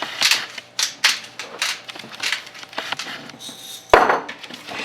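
Hand spice grinder being twisted over a steak, a run of crunching grinding strokes about two a second, with a sharp knock about four seconds in.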